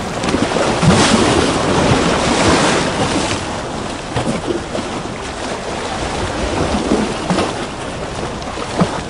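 Recorded ocean ambience of waves and sloshing water: a steady rushing noise with small irregular surges.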